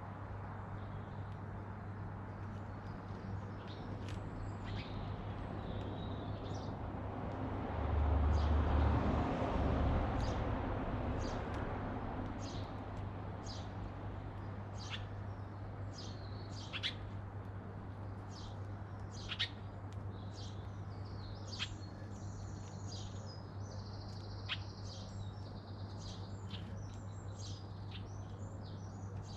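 Garden birds chirping, with short sharp calls scattered through and coming more often in the second half, over a steady low hum. A broad low rumble swells about eight seconds in and fades a few seconds later.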